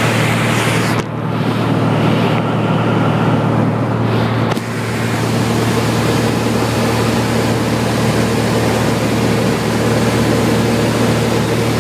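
Cessna 182 Skylane's piston engine and propeller giving a steady drone heard inside the cabin, a constant low hum under a broad hiss. The hiss drops away for a few seconds near the start, then returns.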